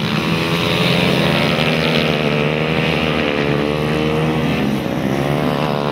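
Several youth speedway motorcycle engines running together, their pitches wavering and overlapping as the bikes race.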